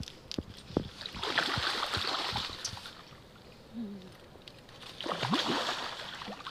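Fish splashing and thrashing at the water's surface as they rush at feed tossed into the water, in two bursts: about a second in and again near the end.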